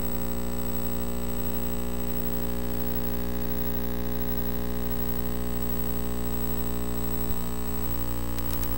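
Steady electrical mains hum and buzz on the sound system's feed, a stack of unchanging tones with no voice over it. A faint click comes about seven seconds in.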